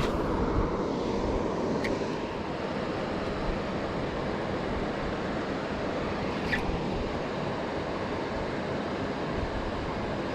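Steady rush of flowing river water with wind on the microphone, and two faint short ticks about two seconds and six and a half seconds in.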